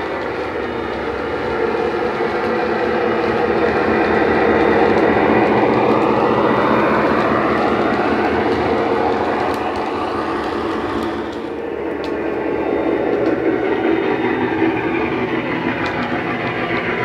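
Digital sound decoder playing a Class 68 diesel locomotive's Caterpillar V16 engine sound through the bass and treble speakers of a Dapol model Class 68, running along the track. The engine note swells and its pitch glides up and down through the middle, drops briefly about eleven seconds in, then builds again.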